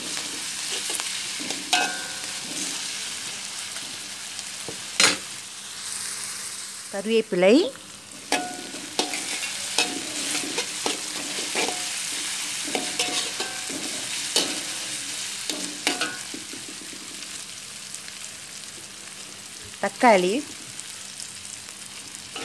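Onion, ginger and garlic paste sizzling in hot oil in a stainless steel wok, stirred with a metal slotted spatula that clicks and scrapes against the pan. Two short, louder gliding sounds fall in pitch about seven seconds in and near the end.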